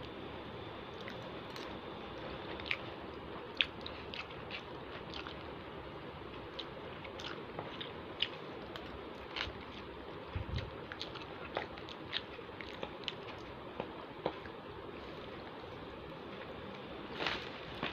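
A person eating nasi lemak with a spoon: chewing with many short scattered clicks, over a steady faint background hum. A soft low thump comes about ten seconds in and a louder clatter near the end.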